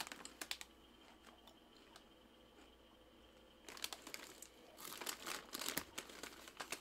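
Faint crinkling of plastic packaging: a bag of barbecue pork rinds being handled and a plastic water bottle, in short crackly bursts at the start and again through the last three seconds, with a quiet stretch between.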